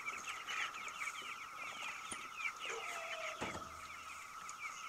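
A flock of young pastured chickens peeping and chirping steadily inside a chicken tractor, with one wooden knock about three and a half seconds in as the plywood lid is set down.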